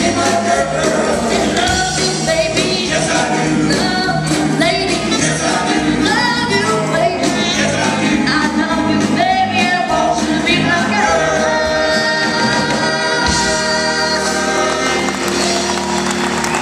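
Live doo-wop vocal group of male voices singing lead and close harmony over a backing band of drums, bass, guitar and keyboard. The voices move into long held harmony notes over the last few seconds.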